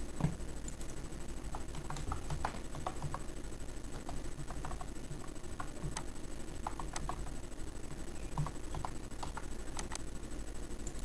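Typing on a computer keyboard: irregular, scattered key clicks with a couple of soft thumps, over a steady low background hum.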